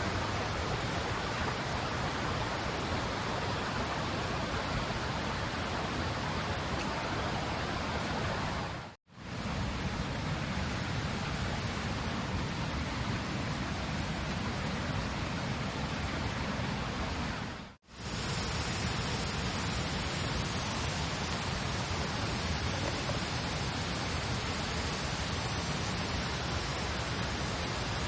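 Steady rushing outdoor noise with no distinct events, broken by two brief dropouts at cuts about 9 and 18 seconds in.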